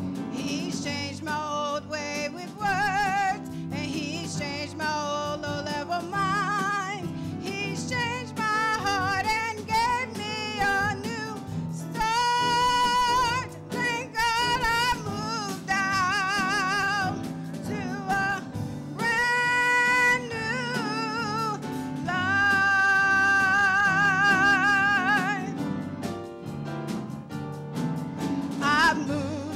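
A woman singing a gospel solo into a microphone, holding several long notes with a wide vibrato, over steady instrumental accompaniment.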